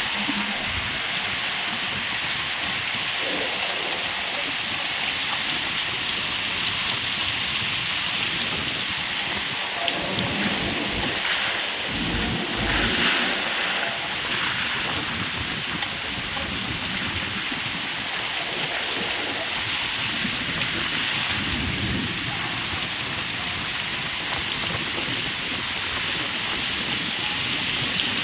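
Steady rain falling, a dense continuous patter, with low rumbles swelling up about ten seconds in and again past the twenty-second mark.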